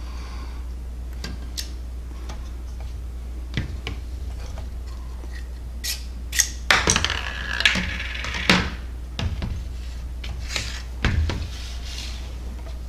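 Handling sounds of 3D-printed plastic clock parts: scattered clicks and knocks as the pallet and its arbor are pulled from the pendulum support and the frame is picked up. A busy stretch of rattling comes about halfway through, with a few more knocks a little later.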